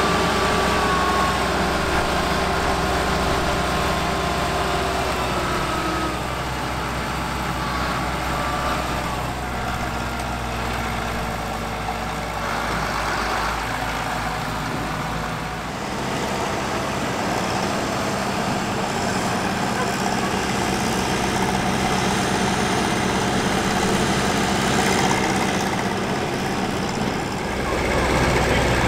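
Heavy engine of a vintage earthmoving machine running. Its low rumble weakens about halfway through and comes back strongly near the end.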